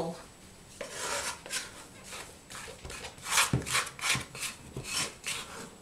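Warm honey-cake dough being scraped out of a glass bowl onto a floured countertop: a run of irregular rubbing, scraping strokes, with a few soft knocks in the second half.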